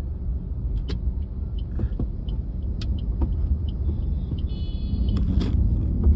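Car driving along a road: a steady low rumble of engine and tyre noise, with scattered light clicks and a brief high tone near the end.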